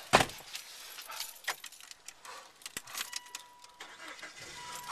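A car door slams shut, followed by keys jangling and scattered clicks and rattles inside the car. A thin steady electronic tone sounds twice in the second half.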